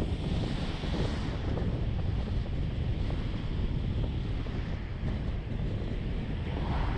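Steady low rumble of road and wind noise from a moving vehicle, with brief swells of hiss about a second in and near the end.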